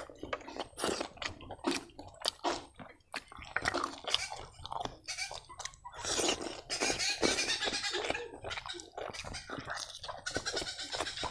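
Close-up eating sounds of a person eating rice and chicken curry by hand: wet chewing and lip-smacking, a quick run of sharp clicks, with a denser stretch about six seconds in as a handful goes into the mouth.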